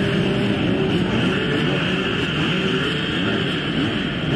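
A full line of motocross bikes revving their engines together at the start gate, many engines blipping up and down in pitch at once in a continuous loud din.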